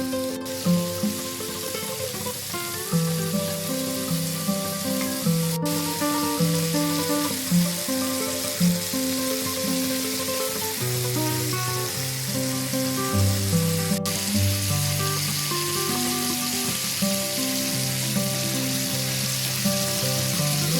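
Food sizzling steadily in hot oil in a frying pan, with background music of plucked, held notes.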